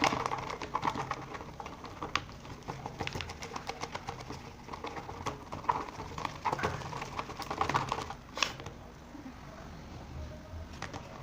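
Sticky slime being stirred with a stick in a pot: irregular small clicks and squelches as the stick works the mixture.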